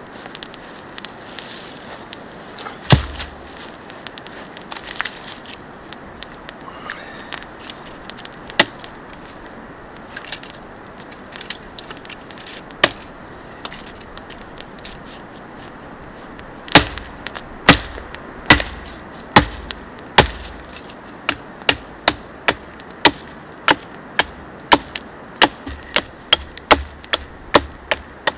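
Hatchet chopping into a dead pine log: a few scattered knocks at first, then from about halfway a steady run of sharp chops that quickens toward the end.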